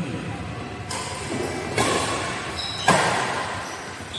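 Badminton rally: rackets hitting the shuttlecock four times, about a second apart, each hit sharp and echoing in the hall.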